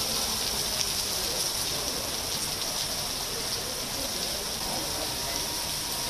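Heavy rain falling and splashing onto a wet, puddled paved road, a steady hiss of many drops.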